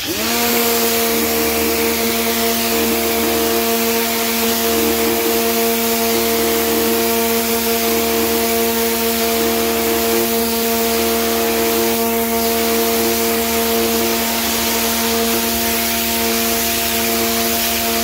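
Electric pressure washer starting up as the trigger is squeezed: the motor and pump spin up within a split second into a steady hum, with the high-pressure water jet hissing against concrete.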